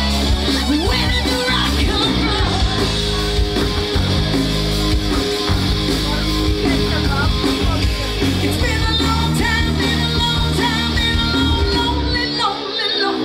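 Live rock band playing: a woman singing over electric guitar, bass guitar and drums. Near the end the low end drops out and a note slides down in pitch.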